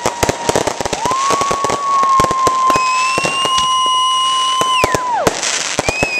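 Handmade aerial firework shells bursting overhead, with dense crackling pops throughout. Over them, long held high-pitched tones: one comes in about a second in and a second joins it, both ending in a falling glide past the five-second mark, and another rises near the end.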